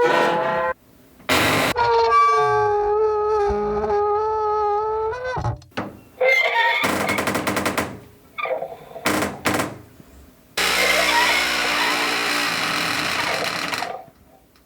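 Old cast-iron stove making horrible squeaky sounds as its metal parts are worked: a short squeak, then a long wavering squeak lasting about four seconds, several short creaks and rasps, and a long rough metal scrape near the end.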